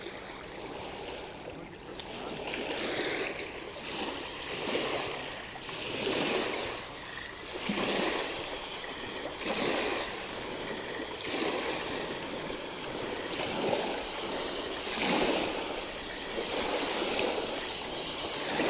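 Small waves lapping at the reservoir's edge, a soft splashing wash that swells and fades every second and a half or two.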